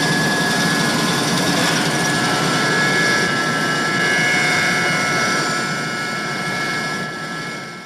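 Air compressor running steadily: a dense mechanical hum with a few steady high whining tones over it, fading out near the end.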